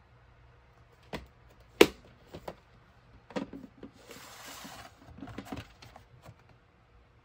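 Plastic VHS clamshell case being handled: several sharp plastic clicks and taps, the loudest about two seconds in, then about a second of scraping as the cassette is slid out of the case, followed by a run of small plastic knocks.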